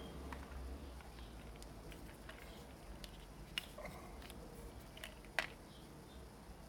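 Quiet handling noises of a small container being turned in the hand: scattered light clicks and taps, with two sharper clicks about three and a half and five and a half seconds in, over a low hum.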